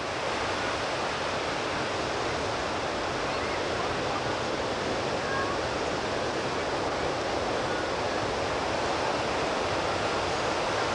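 Heavy ocean surf breaking: a steady rush of whitewater noise with no single crash standing out.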